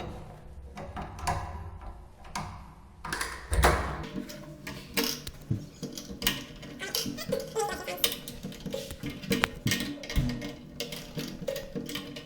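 Light metallic clicks and knocks from a door closer's arm being handled and refitted, over background music.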